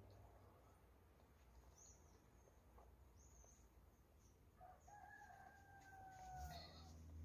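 Faint rooster crow: one long held call about five seconds in, lasting about two seconds and falling slightly at its end. A few short, high bird chirps come before it over otherwise near-quiet room tone.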